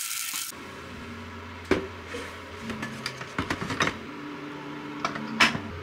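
Tap water running onto rice in a bowl, cutting off about half a second in. Then a series of clinks and knocks as a metal rice-cooker inner pot is handled and set into an electric rice cooker, the loudest knock near the end, over a low steady hum.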